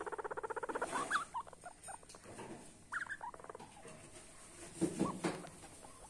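Young guinea pig vocalising: a fast pulsed chatter in the first second, then short rising squeaks about a second in and again about three seconds in, and a pair of louder rising whistles near the end.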